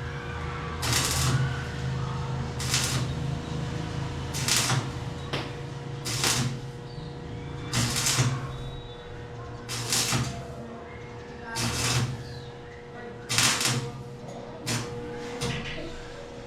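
Repeated rasping scraping strokes, about one every one and a half to two seconds, over a steady low hum that fades about halfway through.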